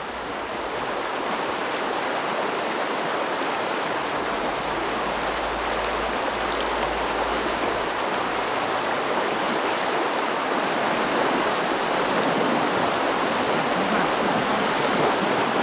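Rushing water of a stream, a steady hiss of flowing water that grows louder over the first couple of seconds and then holds.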